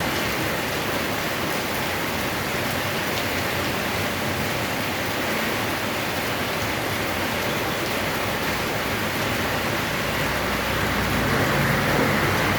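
Steady rain falling as a dense, even hiss, growing a little louder and deeper near the end.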